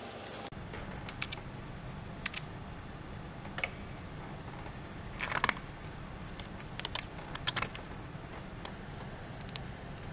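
Scattered small clicks and taps of hands unclipping plastic sensor and wiring connectors on the engine, a handful of separate clicks with the loudest cluster about halfway through, over a steady low hum.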